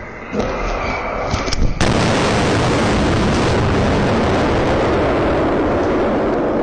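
Explosion sound effect: a sudden blast about two seconds in, followed by a long, steady rumble. A few sharp knocks come before it.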